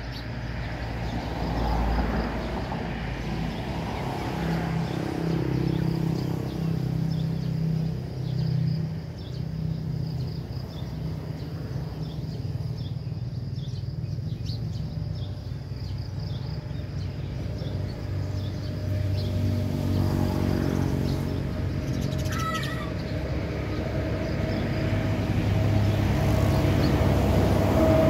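A motor vehicle engine droning, growing louder toward the end, with small birds chirping faintly over it.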